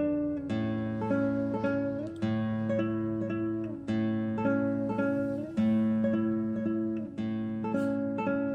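Solo classical guitar playing a gentle piece as background music: plucked notes that ring and fade over low bass notes, a new chord every second or so.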